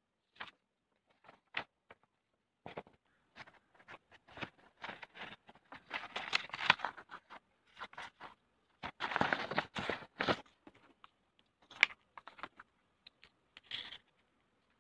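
Close-up handling noise of a cardboard matchbox tray and a sheet of paper on a wooden table: scattered taps, scrapes and paper rustles, busiest in two stretches in the middle.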